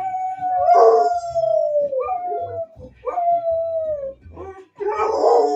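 Two dogs howling together: three long drawn-out howls, one after another, each sliding slowly down in pitch. A rougher, noisier howl from the second dog overlaps about a second in and again near the end.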